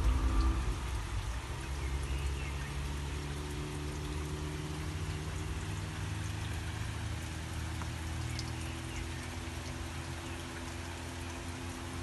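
Steady rain, with scattered drips ticking close by. A low steady hum runs underneath, loudest at the start and easing off within the first couple of seconds.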